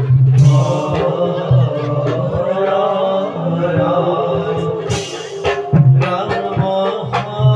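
Live bhaona devotional music: singing over drumming, with two loud crashes about half a second and five seconds in.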